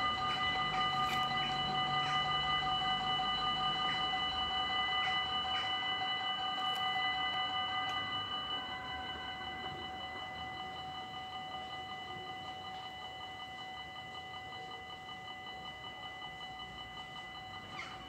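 Dutch railway level-crossing bells ringing together while the barriers come down, a steady high ringing at several pitches. It grows somewhat quieter from about eight seconds in.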